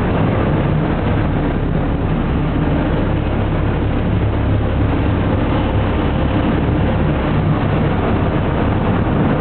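Steady low engine drone of a vehicle under way, running evenly without change.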